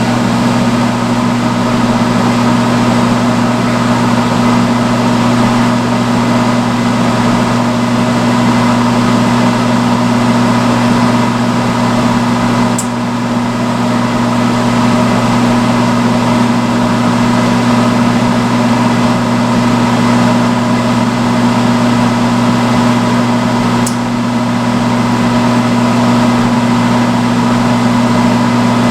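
Salon hood hair dryer running steadily: a loud blowing rush over a constant motor hum. Two small clicks come partway through.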